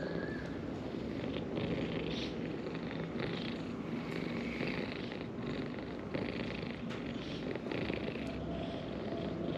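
A domestic cat purring close by: a steady, rhythmic rumble that swells and eases with each breath.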